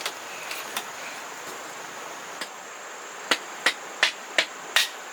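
A hand tool striking bamboo: a few light knocks, then a run of five sharp strikes about 0.4 s apart in the second half. A steady insect buzz runs underneath.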